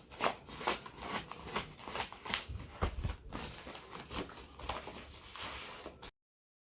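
Rustling, crinkling packaging as a phone package is opened by hand, a busy run of crackles and small clicks. The sound cuts off suddenly near the end.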